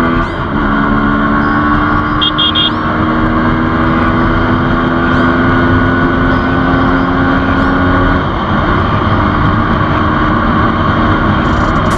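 Sport motorcycle's engine running at a steady cruising speed, its note holding one pitch and easing off about eight seconds in, under heavy wind rush on the helmet microphone. A quick triple beep sounds about two seconds in.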